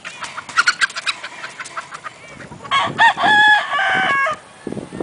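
Gamefowl chickens clucking in quick short notes, then a rooster crowing once about three seconds in: one long stepped call of about a second and a half, the loudest sound here.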